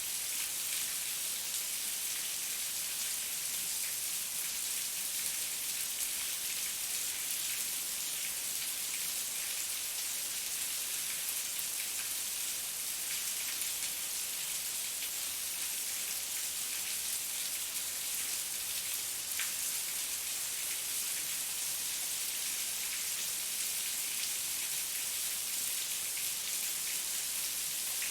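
Heavy rain falling steadily, a dense hiss of many fine drop impacts on a surface.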